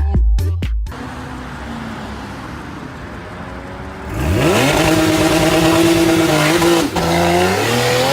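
A motor vehicle engine accelerating hard: the revs climb fast about four seconds in, hold high, drop briefly as if on a gear change, then climb again. Before it there is a steady rushing noise.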